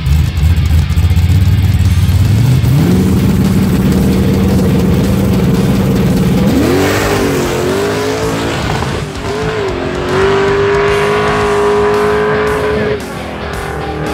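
Two Fox-body Mustang drag cars at the line: engines rumbling loudly, then revs rising about two and a half seconds in and holding at a steady pitch for a few seconds before the launch about six and a half seconds in. The engines then pull hard down the strip with wavering, rising pitch and a high steady note that falls away near the end.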